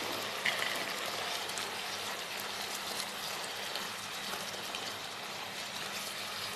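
Macaroni, vegetables and chicken chunks sizzling steadily in oil in a wok, stirred with a silicone spatula, with a few faint scrapes and taps.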